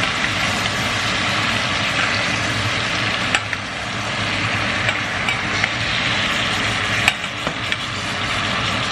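Steak frying in melted butter in a stainless steel pan: a steady sizzle while the butter is spooned over the meat to baste it, with the metal spoon clicking against the pan a couple of times.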